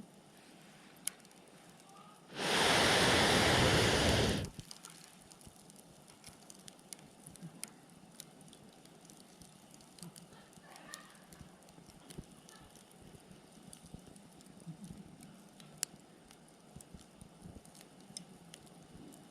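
Wood fire crackling with scattered small pops. About two seconds in, a loud rushing hiss lasts about two seconds and cuts off suddenly.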